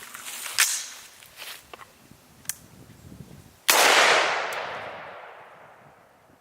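A single AR-15 rifle shot in .223, a sharp crack about halfway through with a long echo that fades away over about two and a half seconds. A few short light clicks come before it.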